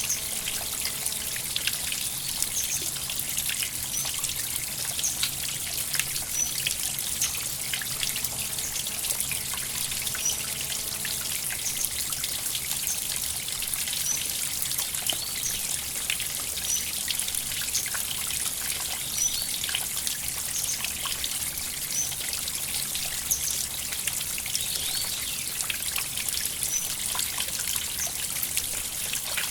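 Shallow river water trickling and babbling steadily, a dense splashing hiss. A short high chirp repeats every two to three seconds over it.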